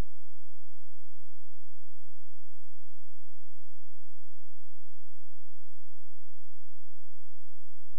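A steady electronic tone of two low-middle pitches held without any change, with a few faint low clicks underneath.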